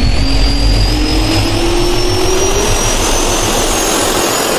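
Jet turbine spool-up sound effect: a high whine and a lower tone both rising steadily in pitch over a heavy rumble.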